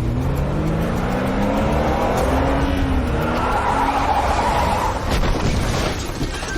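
Car engine revving hard under acceleration, its pitch climbing over the first few seconds, then tyres squealing for about a second and a half around the middle.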